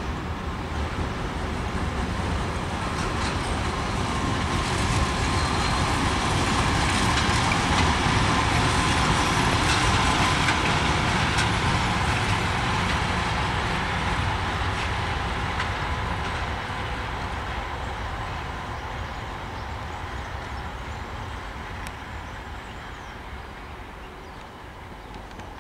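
A 2TE116 two-section diesel locomotive running past: engine rumble and wheel noise on the rails grow louder to a peak about halfway through, then fade as it moves away, with a faint steady whine in the loudest part.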